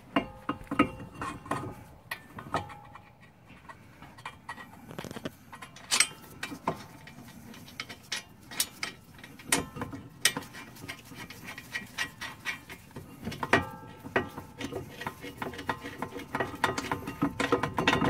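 Irregular small metallic clicks and clinks of a wrench and caliper bolt as the front brake caliper bolts of a 2005 Toyota Corolla are threaded back in, started but not yet tightened. A few of the taps ring briefly like struck metal.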